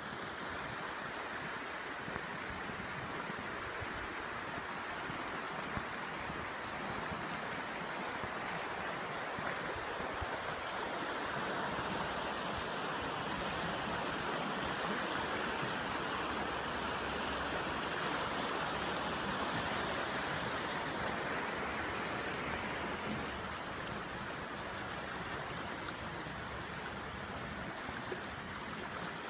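Floodwater rushing steadily in a swollen creek, a continuous noise that swells slightly louder midway and eases off again.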